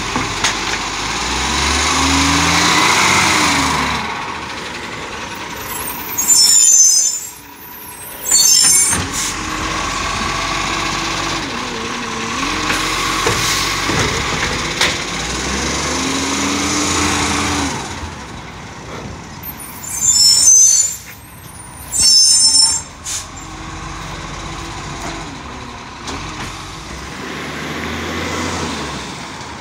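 Side-loader garbage truck at work: its diesel engine revs up and settles back several times, typical of the hydraulic lifting arm tipping bins. Four short, loud air-brake hisses come in two pairs, about a quarter of the way in and again past two-thirds.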